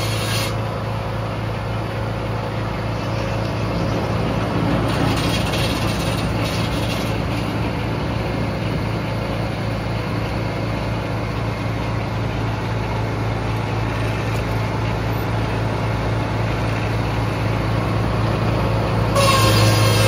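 Frick circular sawmill blade cutting through a red oak log: a steady rasping over the constant hum of the mill's power. Near the end the sawing stops and a louder hum with a steady whine takes over as the blade runs free.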